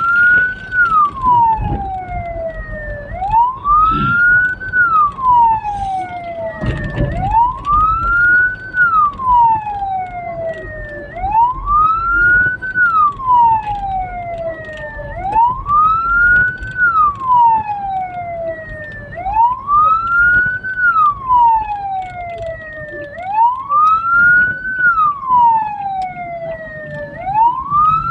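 Hearse's siren wailing in a slow, regular cycle, each wail rising quickly and falling away over about four seconds, over road noise, with a couple of low thumps about four and seven seconds in.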